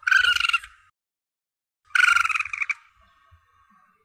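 Young Asian palm civet (musang pandan) calling: two short shrill cries, each under a second long and about two seconds apart.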